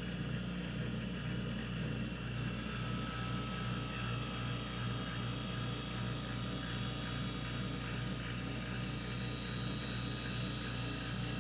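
Skate sharpening machine's grinding wheel running with a steady hum. About two seconds in, the skate blade is passed lightly across the wheel in its holder, adding a steady high hiss of grinding.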